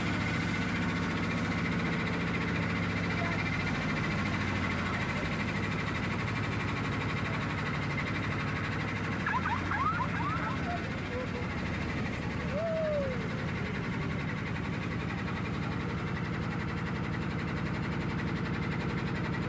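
Tour boat's motor running at a steady low hum while cruising along the stream.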